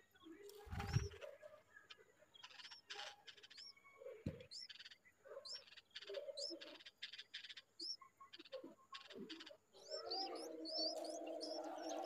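Bulbul nestlings begging with short, high chirps repeated over and over, coming thicker near the end as the parent feeds them. A lower, continuous warbling joins in for the last two seconds. A single soft thump about a second in is the loudest sound.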